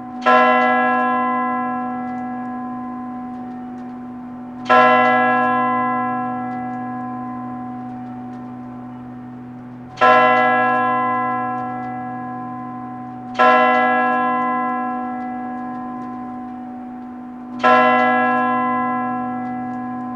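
A single church bell tolling slowly: five strikes about four to five seconds apart, each ringing on and fading before the next.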